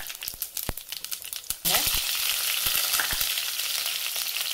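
Mustard and cumin seeds frying in hot sesame oil in a kadai: scattered crackles at first, then about a second and a half in a sudden loud, steady sizzle full of tiny pops. This is the tempering stage, the seeds sputtering because the oil is hot enough.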